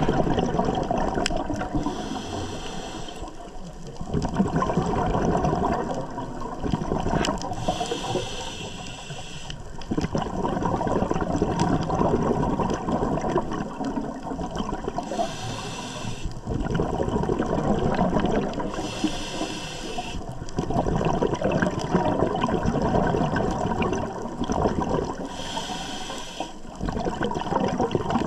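Scuba diver breathing through a regulator: a short hiss on each inhale, then a longer gurgling rush of exhaled bubbles, about five breaths in all.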